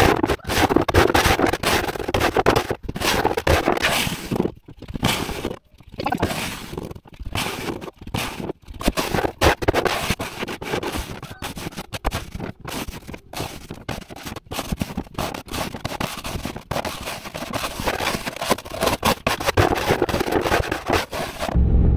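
Red snow shovel scraping and pushing snow across a wooden deck in repeated, irregular strokes, with knocks as the blade hits the boards.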